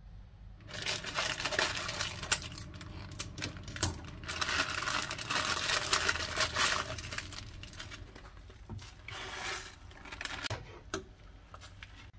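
A plastic instant-noodle packet being torn open and crinkled by hand: dense rustling and sharp crackles for several seconds, then quieter handling with a few separate clicks near the end.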